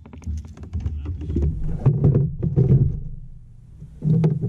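Clicks, knocks and dull thumps of a bass being landed and handled aboard a plastic pedal kayak, with a quieter lull a little past halfway and more thumping near the end.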